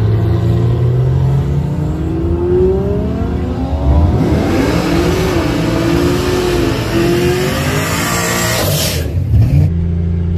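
Turbocharged Toyota 2JZ straight-six in a Holden VH Commodore wagon accelerating hard down a drag strip, its engine note rising and falling as it pulls away. About a second before the end the sound cuts sharply to a steady, lower engine hum heard inside a car's cabin.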